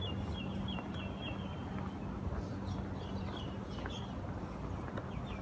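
Small bird chirping: a quick run of short repeated high notes in the first couple of seconds, then a few more calls, over a steady low hum and rumble. Faint footsteps on a path.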